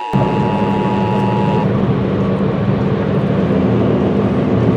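Emergency Alert System attention signal: the steady two-tone 853 and 960 Hz alert tone, which cuts off about a second and a half in. A steady noise with a low hum runs under the tone and continues after it.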